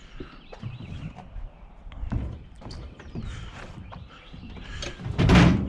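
Steel office desk being handled and tipped: scattered light metal knocks and scrapes, then a loud heavy thud about five seconds in.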